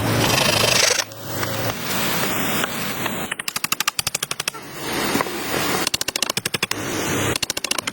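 A power tool running in short bursts of rapid knocking, about a dozen strokes a second, three times, with stretches of harsher rasping noise in between.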